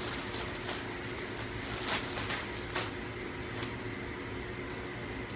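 A plastic garment bag being torn open and crinkled by hand, with several short crackling rustles over the first three and a half seconds. A steady hum runs underneath.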